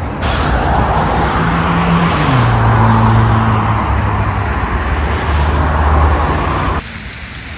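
Street traffic noise: a motor vehicle passing close with engine and tyre noise, its low engine note dropping in steps. It cuts off abruptly near the end.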